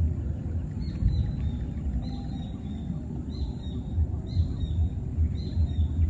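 Outdoor field recording: an irregular low rumble of wind buffeting the microphone, with a small bird chirping short, high, falling notes about once a second.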